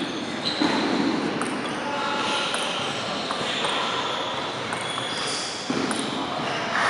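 Celluloid table tennis ball bouncing a few times on the table as a player readies to serve. Under it runs a steady background noise in a large, echoing hall.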